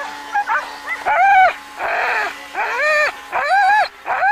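Dogs yelping in a series of high cries, each rising and then falling in pitch, with breathy rasps between them.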